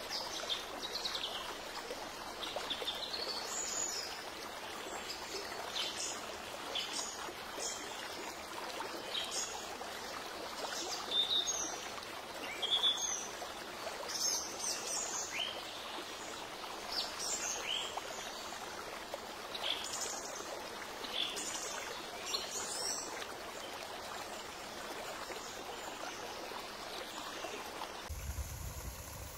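Steady running water with birds chirping over it, many short high calls through most of the stretch. Near the end a low rumble like wind on the microphone comes in.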